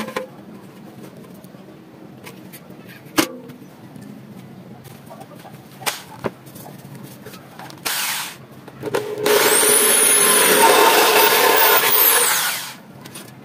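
Electric drill running, its bit boring through the thin sheet-metal wall of a paint can for about three and a half seconds, with a whine that shifts in pitch as it cuts. Before it come a few short knocks and a brief burst of noise.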